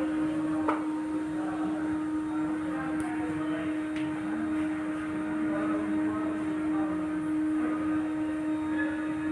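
A steady electrical or mechanical hum holding one pitch, with a few faint taps of a fingertip on the touchscreen.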